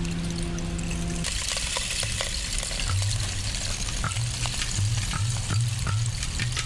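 Experimental electronic improvisation built from granular-sampled loops of pre-Hispanic instruments. A held low drone cuts off about a second in, giving way to a dense crackling, hissing texture with scattered clicks. A pulsing low tone joins it from about three seconds in.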